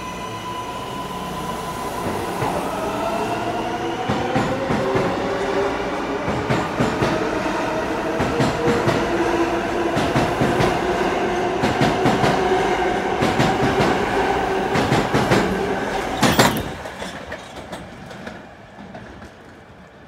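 R143 New York City subway train pulling out of the station, its electric traction motors whining in tones that rise as it speeds up, while its wheels click over the rail joints. A single loud clank comes about sixteen seconds in, then the sound fades as the train leaves.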